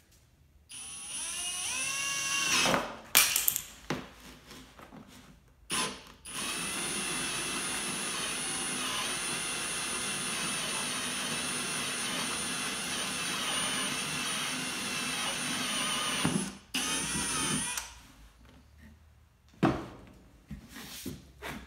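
Drill press spinning a 1-5/8 inch hole saw slowly into a thin plastic storage-box lid: a few short starts in the first six seconds, then a steady cut of about ten seconds that stops suddenly. A single sharp knock near the end.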